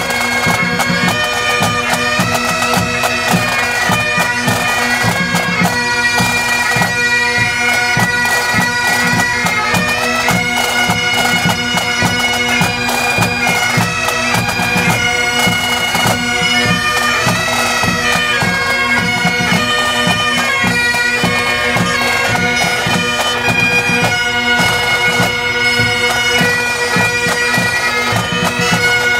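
Pipe band of Great Highland bagpipes playing a tune over steady, unbroken drones, with drums beating beneath.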